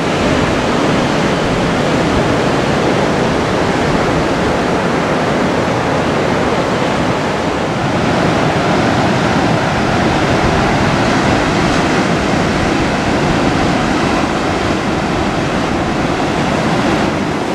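Ocean surf breaking on a wide sandy beach, a steady, even rushing sound with no pauses.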